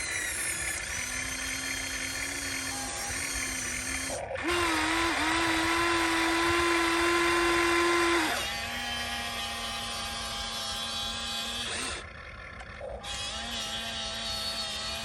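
Whine of a radio-controlled construction model's electric motors, stepping up and down in pitch as the machine works. It is louder and higher for a stretch of about four seconds in the middle and dips briefly near the end.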